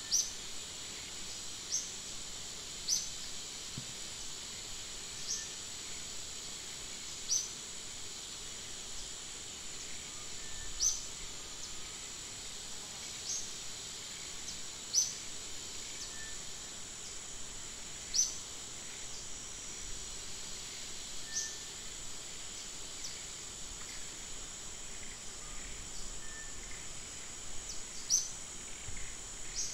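Outdoor insect drone, steady and high-pitched, with a short high chirp repeating irregularly every one to three seconds.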